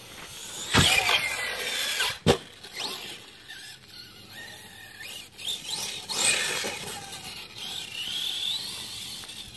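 An RC car's electric motor whining as it is driven over grass, the pitch rising and falling with the throttle. There is a loud thump about a second in and a sharp knock around two seconds in.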